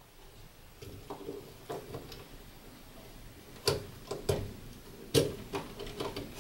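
Small handling noises of wiring work at push-in screwless DIN-rail terminal blocks: light rustling of wire with a few sharp plastic clicks in the second half, as a neutral wire and a small screwdriver are worked into the spring terminal.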